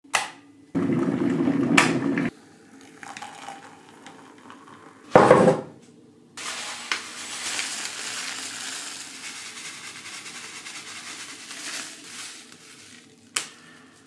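A drink poured into a ceramic mug for about a second and a half, then a short loud knock, then rolled oats poured from a paper bag into a ceramic bowl: a steady dry rustling hiss for about six seconds, ending with a sharp tap.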